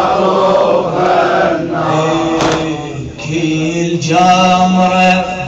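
A group of men chanting a Shia latmiya mourning lament in unison, holding long notes, with occasional sharp strikes of hands beating on chests.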